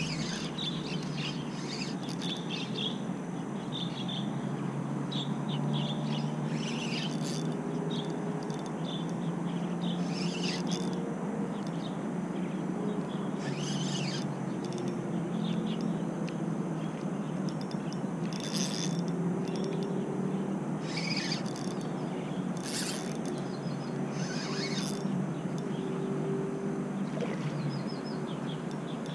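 Birds chirping in short high calls every couple of seconds over a steady, low outdoor background rush.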